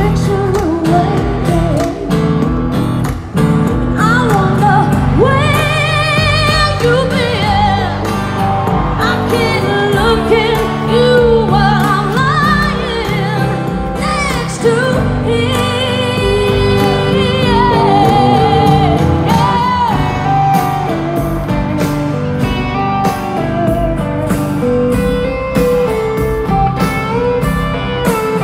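Live country-rock ballad played by a full band through a concert PA, heard from within the crowd. A woman sings the lead line with wide vibrato over guitars, bass and drums.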